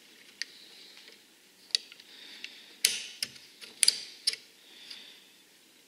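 Light metal clicks and taps of small parts and a tool handled in a Saiga-12 shotgun receiver, about eight at irregular spacing, the loudest two close together near four seconds in.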